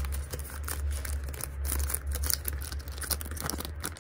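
Clear plastic sleeve crinkling and crackling in irregular small rustles as a photo card set is handled and slid into it, over a steady low hum.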